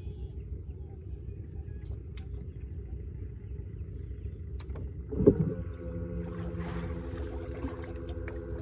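Low wind rumble on the microphone, then a loud thump about five seconds in, followed by a bass boat's electric trolling motor humming steadily for about three seconds.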